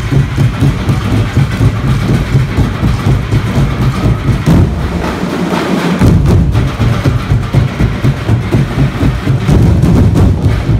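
A street-festival percussion ensemble of drums and large hanging gongs playing a loud, fast, driving beat. The low drums drop out briefly around the middle, then come back in.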